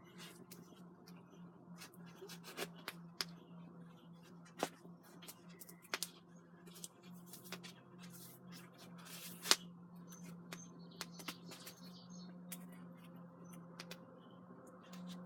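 Campfire crackling: scattered, irregular snaps and pops of burning wood, a few sharper than the rest, over a faint steady low hum.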